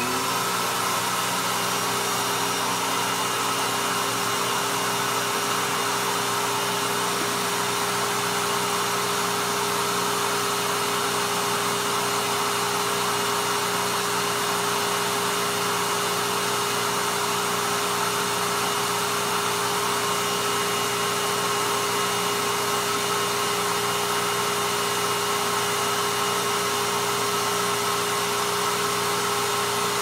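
Royal upright vacuum cleaner, a rebadged Hoover Tempo, switching on and its motor spinning up within the first half second, then running loud and steady at one pitch while drawing air through an airflow test box.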